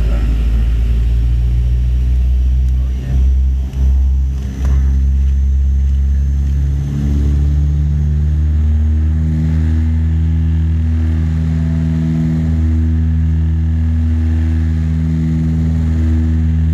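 Dash 8 turboprop's Pratt & Whitney Canada PW100-series engine and propeller running at low power, heard through the cabin as the aircraft taxis: a deep steady drone with a faint high turbine whine. From about eight seconds in the drone throbs regularly, about once a second.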